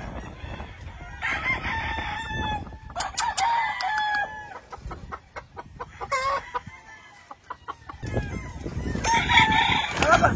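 Gamefowl roosters crowing, several crows one after another with a quieter gap in the middle, and a few sharp clicks between them.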